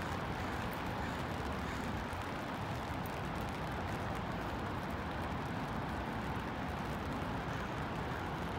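Steady rain falling, with a low, even rumble of city traffic.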